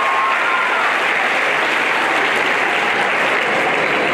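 Audience applauding steadily, with one held whoop in the first half second.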